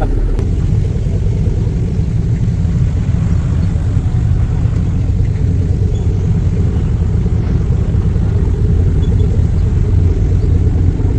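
Jeep riding over a rough, bumpy lava track: a steady, loud low rumble of engine, tyres and wind.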